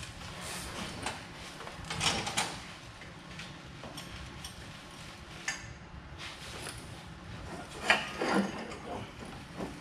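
Scattered knocks, clinks and scrapes of metal exhaust parts being worked into place by hand, with louder clusters about two seconds in and again near the end.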